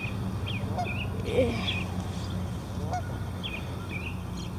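Birds calling outside in short, repeated calls, the loudest about one and a half seconds in, over a steady low hum of highway traffic.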